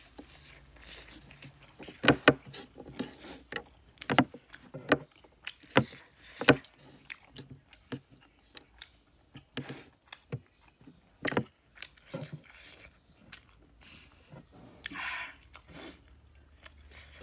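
Close-miked mouth sounds of a person eating a big piece of pork curry: wet chewing and lip smacks in irregular sharp clicks, loudest a few seconds in.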